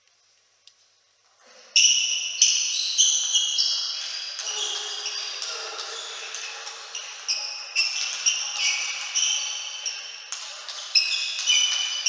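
Near silence, then, about two seconds in, a fast table tennis rally: the ball clicking sharply off the bats and the table several times a second, each hit ringing briefly in the hall.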